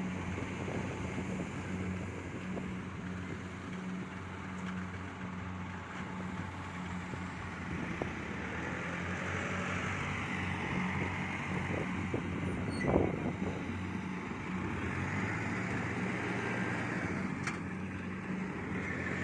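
Kubota DC70 Plus combine harvester running steadily while cutting rice, its diesel engine humming under the clatter of the threshing machinery. A sharp click stands out about 13 seconds in.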